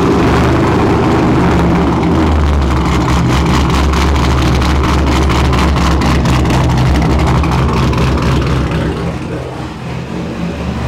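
LS V8 engine in a swapped Mazda Miata idling steadily through its exhaust, a little quieter near the end. It is running on a newly fitted throttle body, and it runs way better, as the owner hoped it would cure an intermittent idle fault.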